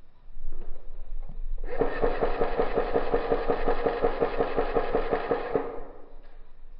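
An airsoft electric gun fires one long full-auto burst lasting about four seconds: a rapid, even clatter of the motor and gearbox that starts and stops abruptly.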